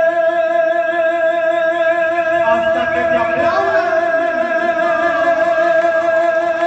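Mariachi band music: one long note held steadily, with other melodic lines sliding and moving over it from about two and a half seconds in.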